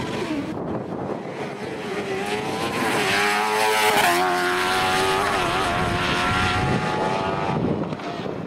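A racing car's engine at full throttle as the car passes close by. The note builds, is loudest and drops in pitch as the car goes past about four seconds in, then fades away near the end.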